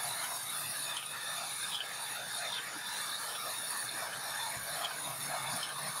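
Large vertical band saw running while a small log is fed through its blade: a steady, even hissing noise with a few faint ticks.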